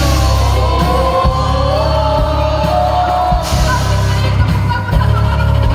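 Loud live concert music over the venue's sound system: a heavy bass beat under a sung vocal line, with the crowd yelling.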